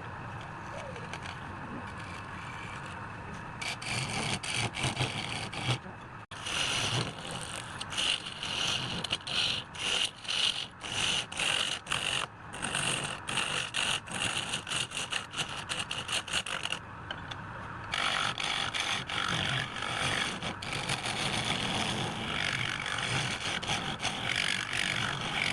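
A hand tool scraping and cutting wood. It is steady at first, then louder in quick repeated strokes from about four seconds in, with brief pauses partway through.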